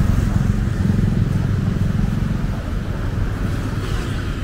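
Busy street ambience: a steady low rumble with faint voices mixed in.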